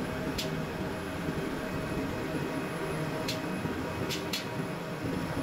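Steady drone of running machinery in a ship's engine room, with four short sharp clicks: one near the start, one about three seconds in, and two close together near the end.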